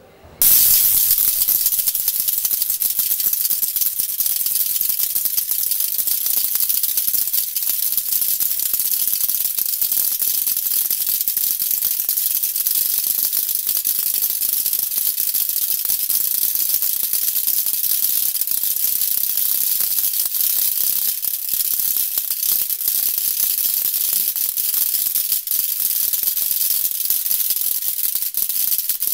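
Homemade Tesla coil rotary spark gap firing: copper contacts in a spinning perspex disc arc in turn across the high-voltage terminals. The result is a loud, dense, even crackle, strongest in the treble, that starts abruptly about half a second in.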